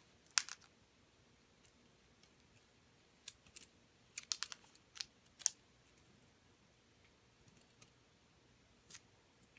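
Scattered light clicks and ticks, several in quick clusters around the middle, from handling and straightening the thin metal tubing and wires of a water heater's replacement pilot and thermocouple assembly.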